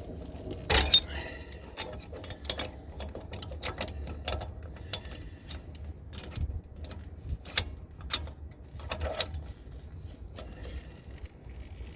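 Brake piston rewind tool turning the rear brake caliper piston back in, with irregular metallic clicks and ratcheting and one loud click about a second in.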